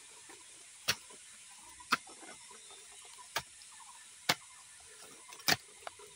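Footsteps over dry leaf litter and twigs, with five sharp clicks about a second apart over a steady faint high hiss.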